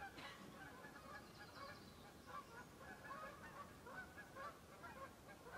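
Faint bird calls, short and repeated, over near silence.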